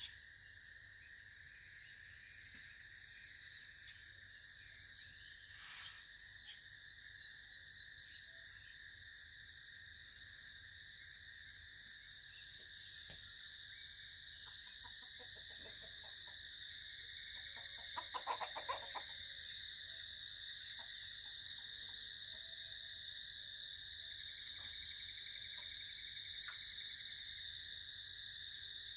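Peacock shaking his feathers in a threat display: a rapid, dry, hiss-like rattle lasting a few seconds, loudest about 18 seconds in. Under it runs a steady high insect chorus that pulses about twice a second at first, then becomes a continuous trill.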